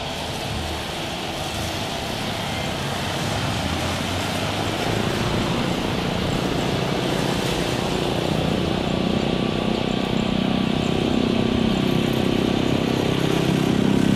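Boeing 777-300ER's twin jet engines at takeoff thrust during the takeoff roll and lift-off, heard from beside the runway. The steady jet noise grows louder throughout, with a deeper rumble building in the later part as the aircraft climbs away.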